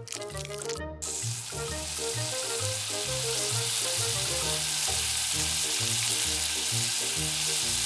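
Crab-and-beef patties frying in hot oil in a miniature pan: a steady sizzle that starts about a second in and grows slightly louder.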